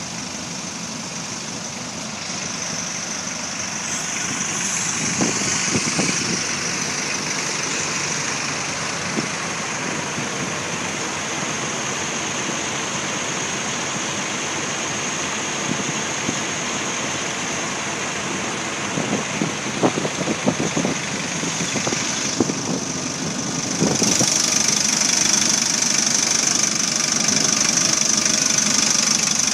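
Hyster forklift's diesel engine running steadily, with a few short knocks, growing louder about five seconds before the end.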